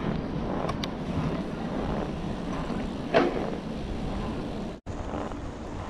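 Wind rushing over the microphone while riding a bicycle, with low rumble from the ride. A short louder knock comes about three seconds in, and the sound cuts out for an instant near the end.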